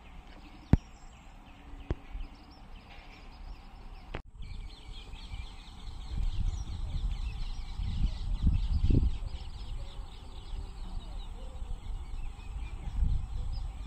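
Birds chirping in the background over uneven low rumbling, with a sharp click about a second in.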